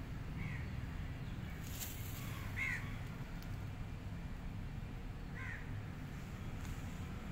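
A young stray kitten mewing three times, short thin cries spaced a couple of seconds apart, the middle one loudest, over a steady low background rumble.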